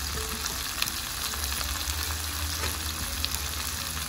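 Electric skillet of napa cabbage, leafy greens and tofu cooking on high heat, sizzling steadily with many small crackles and pops.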